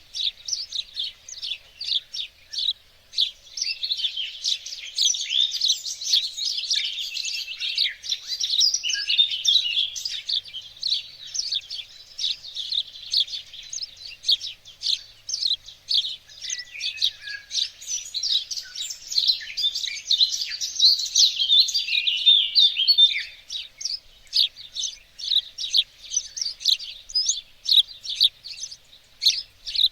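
Songbirds chirping and singing together, a dense chorus of quick high chirps that thins to separate chirps for the last several seconds.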